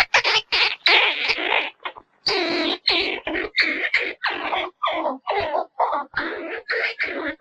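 Squirrel calling: a fast run of harsh, raspy chirps and barks, about three a second, with a longer drawn-out call about a second in.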